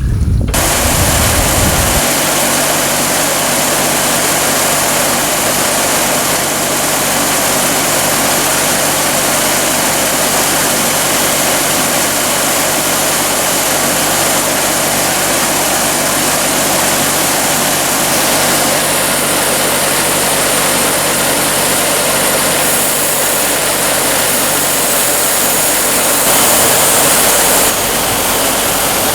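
Large sawmill machinery running: a steady, loud engine hum under a constant rushing noise.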